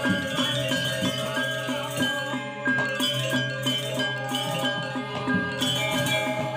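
Balinese gamelan playing: metallophones ringing in a quick, even pattern of strokes over a low sustained tone.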